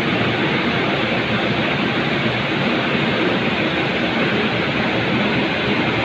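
Steady, even background noise of a factory floor, with no distinct clicks, knocks or motor whine standing out from it.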